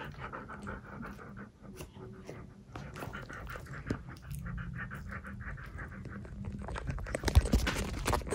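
Dog panting in quick, even breaths, with a few sharp knocks from the camera being handled near the end.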